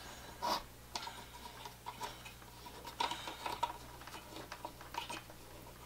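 Scattered light clicks and small knocks from a hobby drill press stand holding a Dremel as its carriage is handled and wiggled, over a faint low steady hum.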